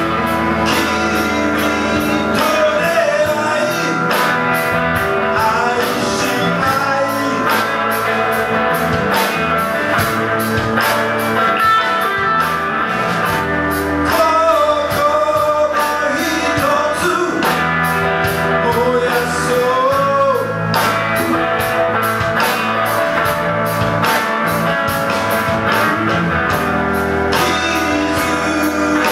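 A rock band playing live: a man singing the melody over electric guitars, with a steady beat.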